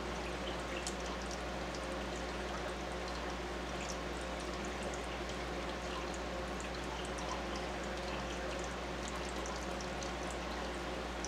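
Aquarium water noise: a hang-on-back filter's outflow trickling and an air stone bubbling, steady, with tiny bubble pops and a constant low hum underneath.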